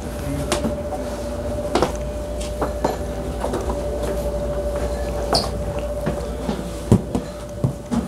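Stainless-steel refrigerator doors being handled and opened: a series of separate clicks and knocks from handles, latches and door panels. Under them run a steady low hum and a constant thin tone.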